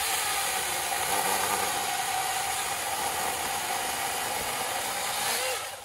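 NaTiddy 6-inch brushless cordless mini chainsaw running under load, its chain sawing through a hard oak limb about 3 inches thick, a steady whine over the chain's rasp. It stops suddenly near the end as the cut goes through.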